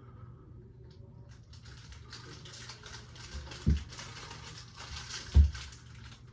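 Light clicking and rustling of something being handled, with two dull thumps about a second and a half apart.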